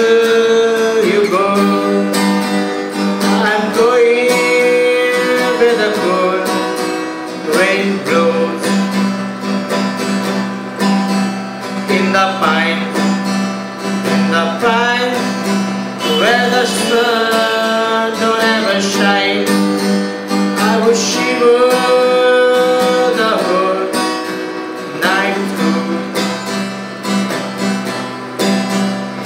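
Acoustic guitar strummed and played steadily, with a man's voice singing along over it in places.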